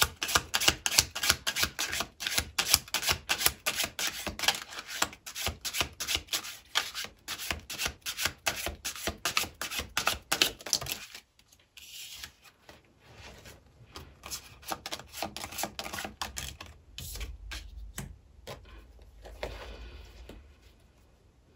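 Tarot cards being shuffled by hand: a quick run of card slaps and rubs, several a second, for about eleven seconds, then quieter, sparser handling of the cards.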